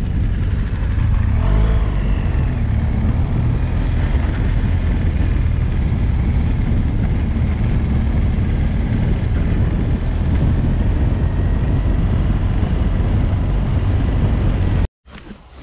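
Enduro motorbike ridden along a dirt track, its engine running under wind rushing over the helmet-mounted camera's microphone: a loud, steady low rumble that cuts off suddenly near the end.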